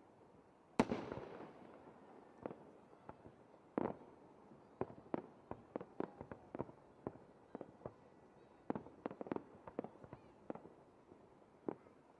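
Aerial fireworks display: an irregular series of sharp bangs from bursting shells, some in quick clusters. The loudest comes about a second in and is followed by a long fading tail.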